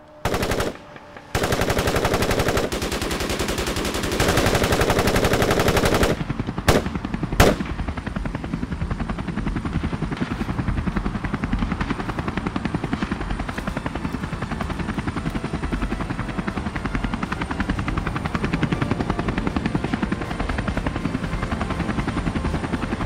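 Sustained automatic gunfire for several seconds, ending with two sharp single shots. It gives way to the steady, evenly pulsing chop of a helicopter's rotor.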